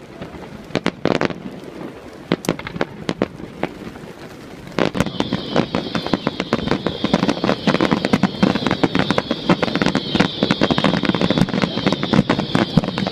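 Fireworks exploding: scattered sharp bangs at first, then about five seconds in a dense, continuous crackle of many rapid reports with a steady hiss, which keeps going.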